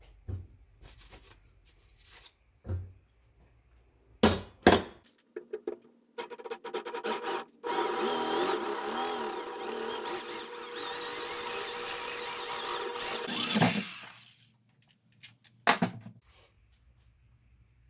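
Several clicks and knocks, then a small motor runs steadily for about seven seconds and stops, followed by two more sharp knocks.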